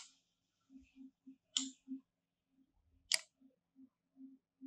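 Sharp clicks of a computer mouse, three of them about a second and a half apart, as line segments are clicked and dragged between anchor points.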